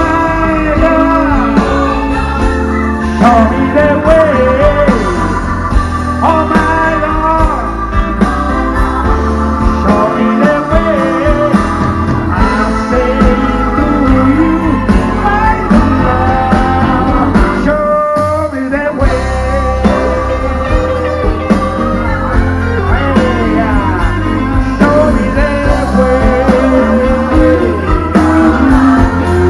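Live band playing a blues-rock song through a large outdoor PA system, heard from within the audience.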